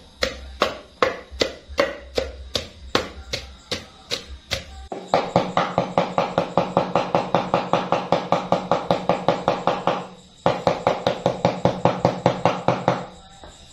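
A pestle pounding spice paste in a stone mortar, about two dull strikes a second; then, about five seconds in, a cleaver chopping fast on a thick wooden chopping block, about six strokes a second, with a short pause about ten seconds in, stopping shortly before the end.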